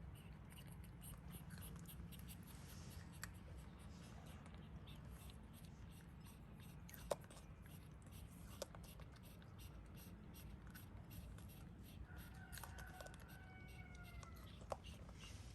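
Near silence: room tone with a steady low hum and a few faint clicks, the sharpest about seven seconds in.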